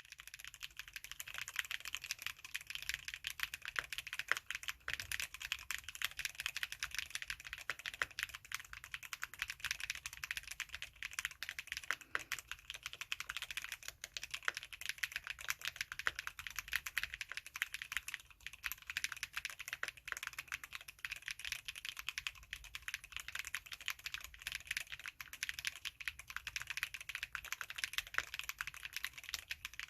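Custom AC067 mechanical keyboard with fully lubed Sea Salt switches, typed on continuously: a fast, irregular stream of key strokes.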